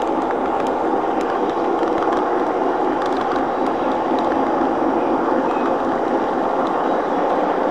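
Lionel O-scale model train running on three-rail track: a steady rolling rumble of motor and wheels, with a few light ticks, heard from on board the moving train.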